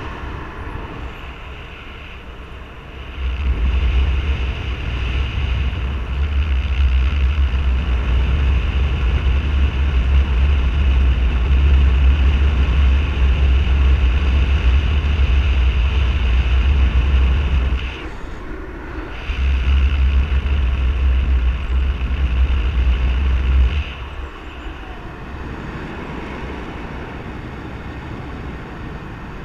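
Wind noise from the airflow of a paraglider in flight buffeting the camera microphone: a loud, heavy rumble that sets in about three seconds in, breaks off briefly near the middle and stops a few seconds before the end, leaving a softer steady rush of air.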